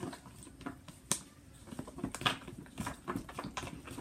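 A spoon stirring sticky slime mixture in a bowl: irregular clicks, taps and squelches, with a sharp click about a second in and another just after two seconds.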